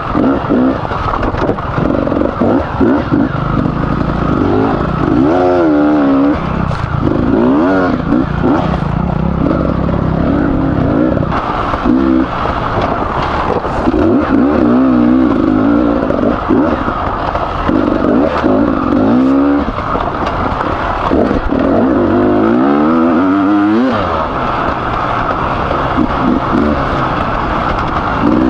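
Beta 300RR two-stroke enduro engine revving up and down again and again, its pitch rising and falling every second or two as it is ridden along a trail. The engine is freshly rebuilt with a new piston and bearings.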